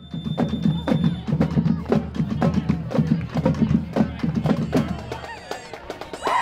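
Marching band drumline playing a street cadence: fast, even strokes of snare, tenor and bass drums with sharp stick clicks. It eases off about five seconds in.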